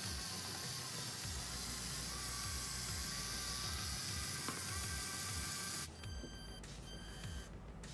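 Small electric motors of a Lego Technic RC rock crawler whirring with a thin wavering whine over a steady hiss as it crawls over loose toy wheels. About six seconds in the sound drops and changes abruptly.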